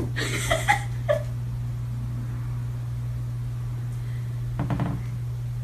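A small kitten giving a few short mews in the first second or so, then a short noisy sound near the end, over a steady low hum.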